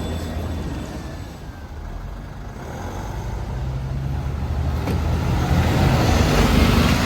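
A bus engine and road noise passing close by, growing louder to a peak near the end and then starting to fade.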